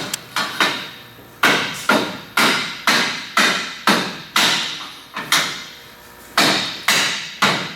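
Hammer blows, about two a second, each with a short ringing decay, with a brief pause about two-thirds of the way through before a few more strikes.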